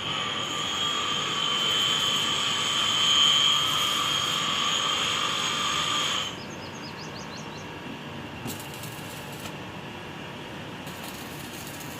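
Electric power tool running with a steady high-pitched whine for about six seconds, then switched off abruptly.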